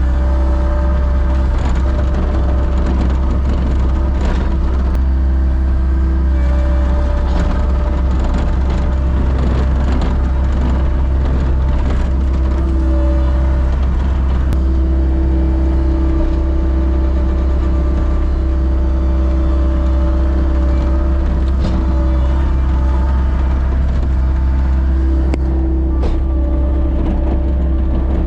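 A vehicle engine running at a steady speed: a deep constant drone with a steady hum over it, without revving.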